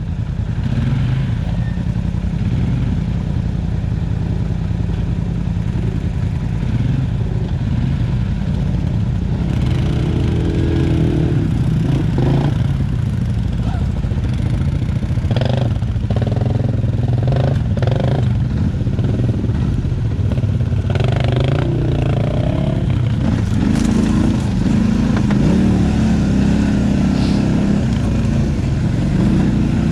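ATV engine running steadily while riding a trail, its note rising and falling a little with throttle, with a few short knocks and clatters along the way.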